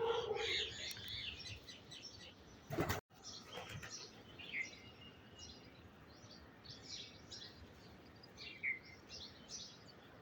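Small birds chirping, with many short high calls, and a lower call right at the start. About three seconds in there is a brief noisy burst, and the sound cuts out for a moment.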